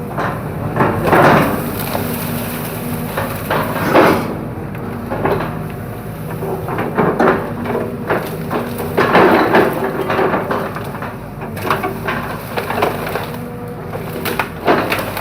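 Bamboo stems cracking and splintering as an excavator breaks through a bamboo clump, in repeated loud surges over the excavator's steady diesel engine hum.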